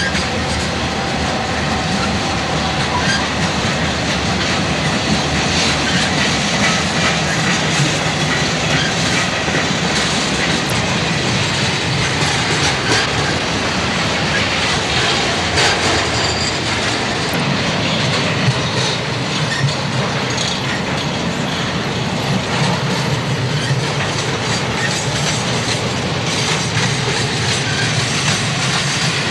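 Freight cars of a Southern Pacific train rolling past close by: a steady loud rumble of steel wheels on rail, with a rapid clatter of clicks as the wheels cross rail joints.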